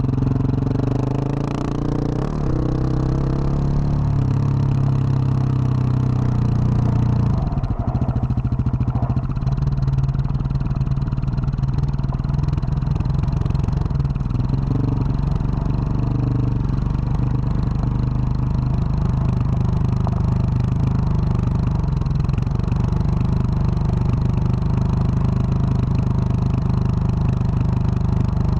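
2021 Husqvarna 701 supermoto's single-cylinder engine, fitted with a Wings exhaust, running steadily under way on a dirt trail, its note shifting briefly about eight seconds in. Tyres clatter and scrape over the dirt and stones beneath.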